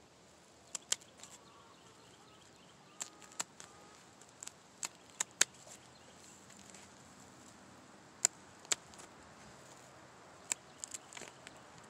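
Scissors snipping through a hen's wing flight feathers: about a dozen sharp snips, irregularly spaced and some in quick pairs, as the wing is clipped to stop the bird flying.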